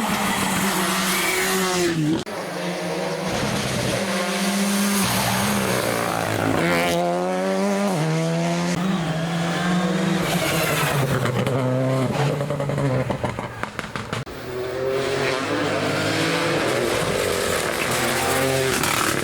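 Rally car engines driven at full throttle, revving hard, the pitch climbing and dropping back with each gear change. There is a brief dip about two seconds in and a lift-off around the middle.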